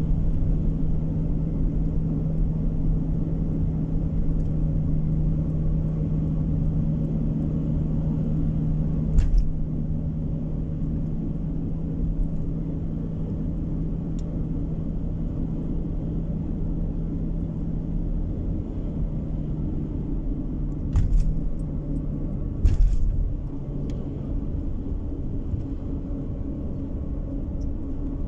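A car driving, heard from inside the cabin: a steady low drone of engine and road noise, with a sharp thump about a third of the way in and two more close together later on.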